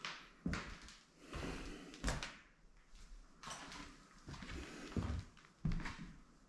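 A series of irregular knocks and thuds, with scraping noises between them.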